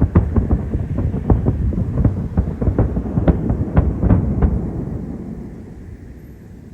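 Aerial firework shells bursting in a rapid string of sharp bangs over a continuous low rumble, thinning out and fading about five seconds in.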